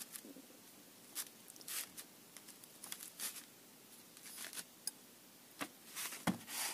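An aluminium engine piston from a CF Moto 2V91W ATV engine being turned over in the hand on a paper-covered bench: a dozen or so short, light clicks and rustles of metal and paper, scattered throughout.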